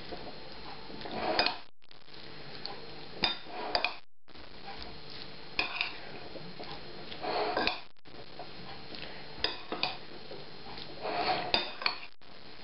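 Metal spoon stirring a chopped salad dressed with mayonnaise in a ceramic bowl, with irregular clinks and scrapes against the bowl every second or two.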